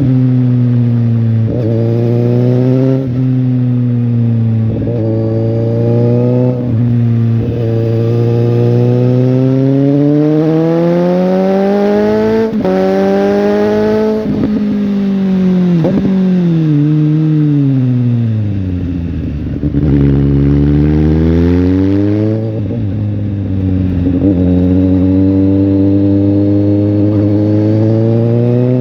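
Suzuki GSX-S750's inline-four engine under way, revving up through the gears, its pitch dropping sharply at each upshift. After a long rising pull the revs fall away through downshifts to a low idle about two-thirds of the way through, then it accelerates and shifts up again.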